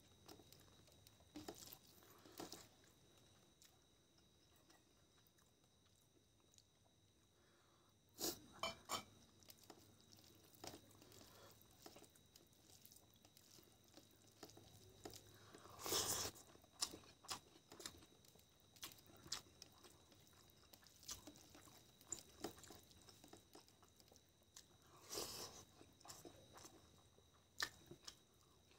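Faint hand-eating sounds: fingers squishing and mixing rice into chicken curry on a steel plate, with scattered soft clicks and a few louder bursts, then a mouthful being eaten near the end.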